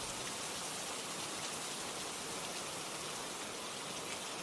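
Steady rainfall: an even, hissing patter of rain with no distinct drops or thunder standing out.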